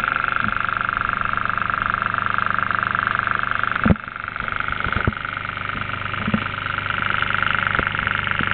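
Small homemade electric motor, two toroidal coils driving a rotor fitted with neodymium magnets, running steadily on 6 V DC with a continuous whine and hum. A few short knocks come from about four seconds in.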